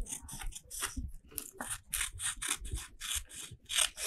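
Paper being rubbed and creased by hand on a tabletop while card sheets are trimmed: a run of short scratchy strokes, roughly three a second.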